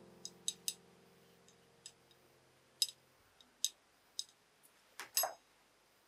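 A series of small, sharp clicks and ticks, as of small objects being handled. The loudest is a double click about five seconds in. Soft piano music dies away over the first three seconds.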